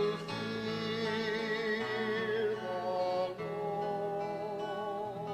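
Liturgical singing of the responsorial psalm refrain, a voice with vibrato holding long notes over sustained keyboard chords.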